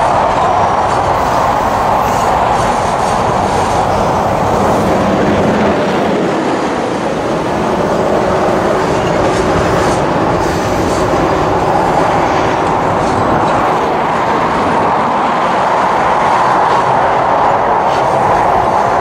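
Freight cars (covered hoppers and tank cars) rolling past at close range: a steady, loud rumble of steel wheels on rail, with faint repeated clicks.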